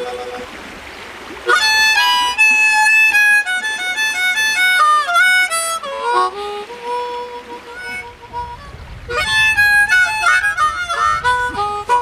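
Harmonica played by hand in quick melodic phrases of chords and single notes. It opens on a held note, falls briefly quiet, then runs through busy phrases with a short pause about eight seconds in before picking up again.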